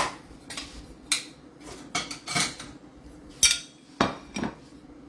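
Metal cutlery clinking and scraping against a ceramic plate: about eight separate sharp knocks spread unevenly, a few with a short ring.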